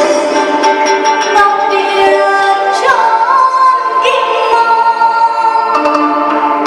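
Music: a group of voices singing together in long held notes over instrumental accompaniment.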